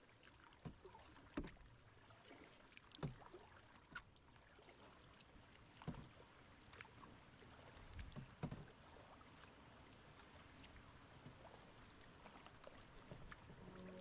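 Faint canoe paddling: irregular short splashes and knocks of the paddle, a second or more apart, thinning out after about nine seconds, over a quiet steady wash of water.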